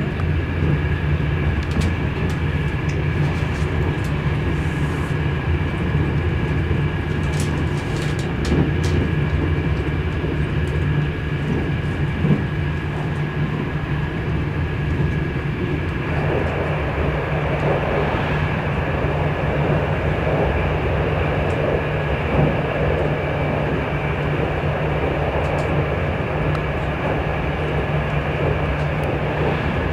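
Train running, heard from inside the carriage: a steady low rumble with a faint steady high whine. There are a few light clicks about a quarter of the way in, and a louder rushing noise joins about halfway through.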